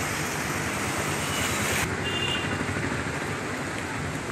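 Steady rushing noise of a flooded street, with a low hum beneath it. The highest hiss drops away about two seconds in.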